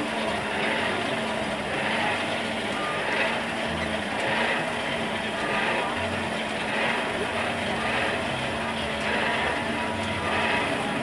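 Air blower on a blacksmith's coal forge, fanning the fire while a steel rod heats: a steady low hum with a whooshing swell a little more often than once a second.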